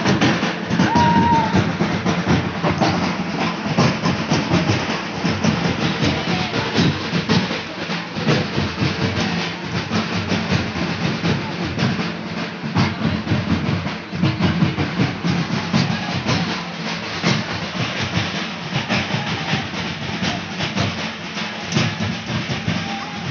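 Fast, dense folk drumming for a circle dance, played as a continuous rhythm, with crowd sound beneath.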